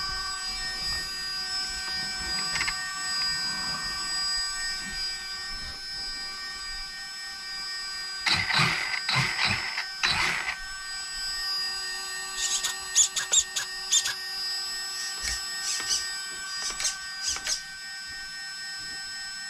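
Steady high whine of the Losi Promoto MX's electric gyro flywheel spinning. Louder rustling and knocks about eight to ten seconds in, then a run of short clicks.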